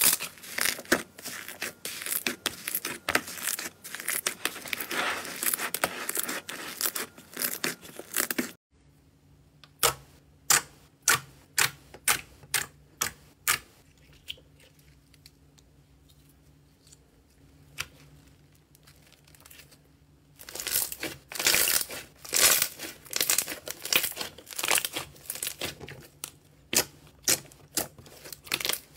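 Hands stretching and pressing slime: dense sticky crackling at first, then a run of separate small pops about two a second, a quieter stretch, and dense sticky crackling again near the end.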